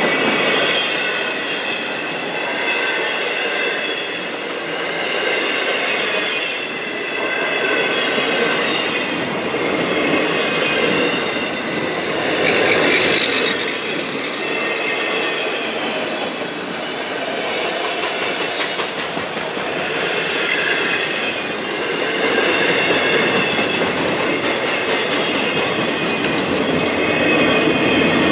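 A long freight train of autorack cars rolling past: a steady rumble and clatter of steel wheels on rail that swells and eases, with a high, wavering wheel squeal coming and going.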